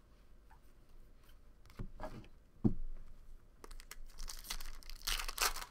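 A couple of soft knocks about two seconds in, then a foil trading-card pack wrapper being torn open and crinkled for about two seconds near the end.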